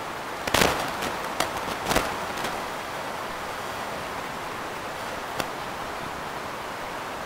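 Steady hiss from a microphone lowered down a borehole, with a quick run of sharp knocks and scrapes in the first two and a half seconds, the loudest near the start, and one more single knock a little past five seconds in. The recordists take these underground knocks for tunnel-digging work.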